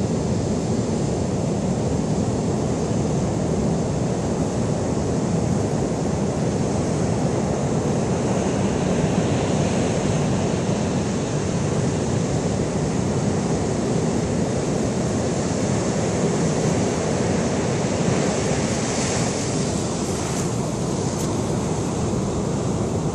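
Heavy storm surf breaking on rocks and washing up a sand beach: a dense, steady wash of waves with no let-up.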